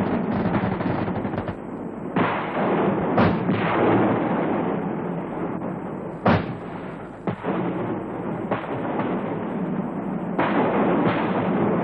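Gunfire in a firefight: a continuous din of shooting with single sharp shots and heavier blasts standing out, the sharpest about six seconds in.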